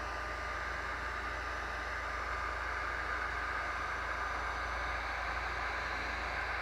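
Handheld electric heat gun running, blowing hot air across wet epoxy: a steady rushing hiss with a faint high whine.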